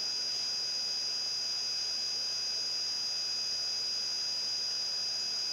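Steady background hiss with a constant high-pitched whine, unchanging throughout; no other sound.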